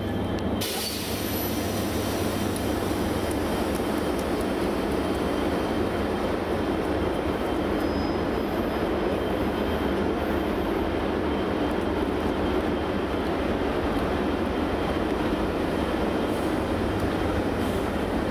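Freightliner Class 90 electric locomotive with a Class 66 diesel locomotive coupled behind, moving slowly past: a steady low drone of the locomotives with rumbling wheels, unchanging throughout.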